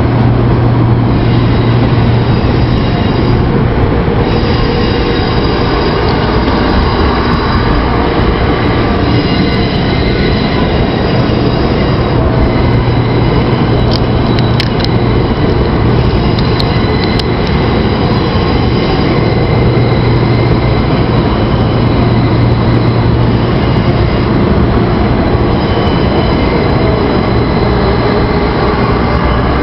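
300 series Shinkansen train running past at close range: continuous rail and running noise with steady high tones like wheel squeal, a low hum that swells and fades, and a few sharp clicks about halfway through.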